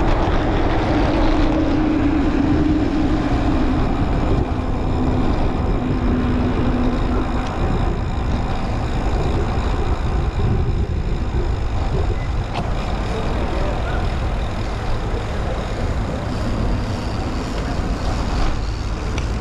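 Wind rushing over the microphone while cycling along a road, with a passing motor vehicle's steady drone that fades out about seven seconds in.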